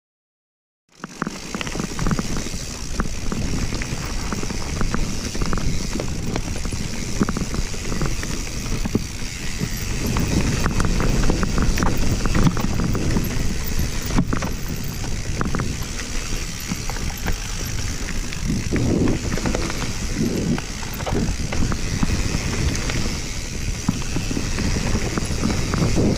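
Mountain bike riding fast down a dirt trail: tyres rumbling over the ground and the bike rattling and clattering over bumps, with wind rushing on the on-board microphone. It starts about a second in.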